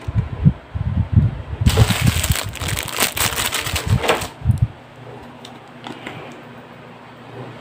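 Handling knocks and rustling as a CD is laid in a DVD player's disc tray and the tray closes: a busy run of clattering lasting about four and a half seconds.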